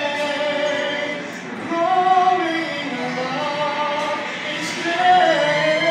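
Voices singing a slow gospel song, holding long notes that slide from one pitch to the next, with no clear words.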